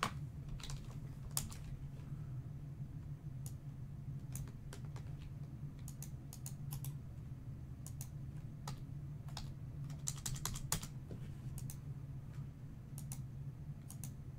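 Computer keyboard typing and clicking in irregular bursts of keystrokes, over a low steady hum.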